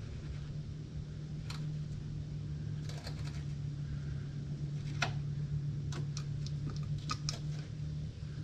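Scattered small metallic clicks and ticks as a hand turns the nut and adjuster on a Honda CBR600 F4's swingarm pivot bolt, with a cluster of clicks near the end, over a steady low hum.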